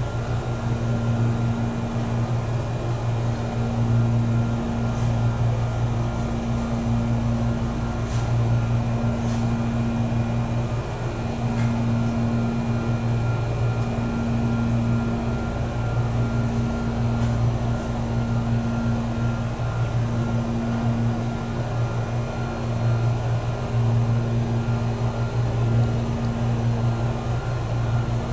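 Jomo Electric Railway 700-series electric train (ex-Keio 3000 series), heard from inside the passenger car: a steady, even running noise with a low drone that dips briefly every couple of seconds.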